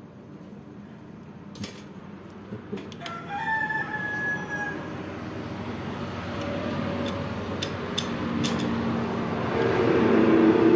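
A rooster crowing, once about three seconds in and again, louder, near the end, with a few sharp metal clinks from tools on the crankshaft and bearing caps.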